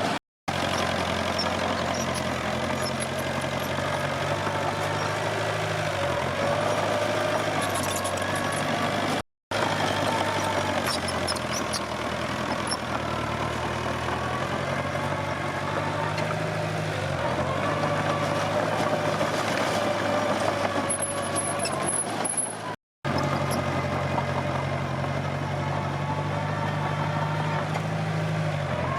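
Komatsu D21P bulldozer's diesel engine running steadily while the dozer works, its pitch dipping and recovering under load now and then, with light metallic clinks. The sound breaks off for an instant three times.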